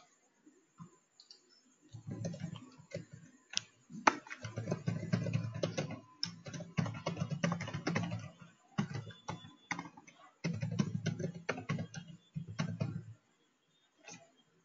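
Typing on a computer keyboard: quick runs of keystrokes with short pauses between them, starting about two seconds in and stopping a little before the end.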